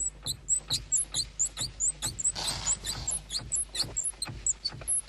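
Fast, rhythmic high-pitched squeaking, about four to five squeaks a second, each with a light knock.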